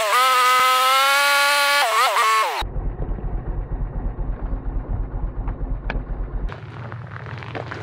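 Polaris Sportsman 850 ATV's twin-cylinder engine under way, sped up by fast-forwarding into a high whine whose pitch holds and then swings up and down with the throttle. About two and a half seconds in it cuts abruptly to a much quieter low pulsing rumble of the parked ATV, which drops lower about six and a half seconds in.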